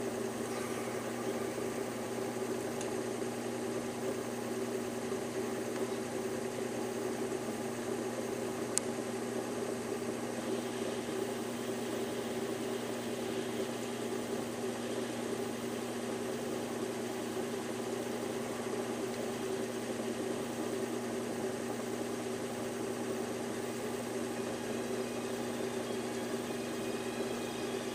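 Steady mechanical hum and whir of a 1956 Col-R-Tel color converter, its motor-driven color wheel spinning in front of the picture tube. A faint single click about nine seconds in.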